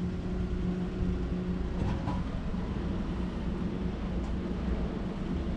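Frozen-food vending machine humming steadily while its dispensing mechanism moves the selected curry to the pickup hatch.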